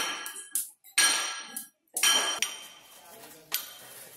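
Sharp metallic clanks, metal striking the steel of the spit-roasting rig. Four loud strikes come about a second apart, each ringing briefly as it dies away.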